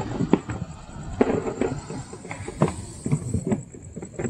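Distant fireworks going off across a city: an irregular run of pops and bangs, several a second, the loudest right at the start.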